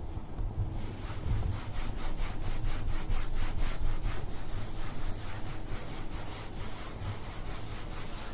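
Wiping a kitchen surface with quick back-and-forth strokes, several a second, a steady rhythmic rubbing that grows louder about a second in.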